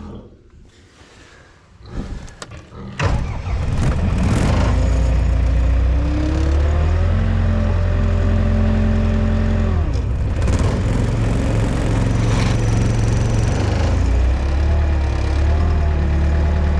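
Small skid loader's diesel engine started after glow-plug preheating. It turns over briefly, catches about three seconds in, then runs loudly. Engine speed rises around six seconds in, drops near ten seconds and rises again near the end.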